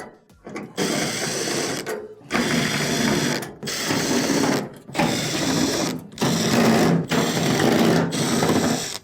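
Power drill-driver backing out Phillips screws, running in about six spurts of a second or so with short pauses between them.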